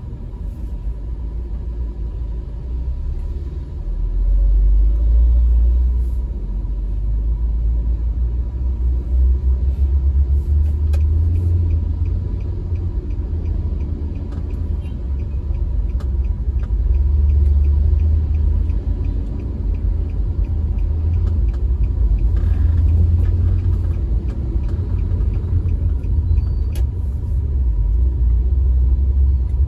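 Low, steady rumble of a car driving slowly in congested traffic, heard from inside the cabin: engine and road noise that swells and eases as the car moves off and slows.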